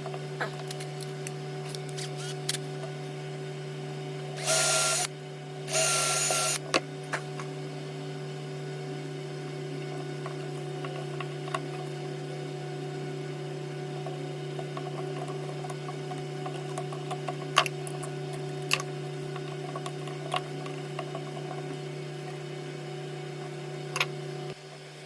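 A steady machine hum with many light clicks, broken by two short loud hissing bursts about four and six seconds in; the hum cuts off just before the end.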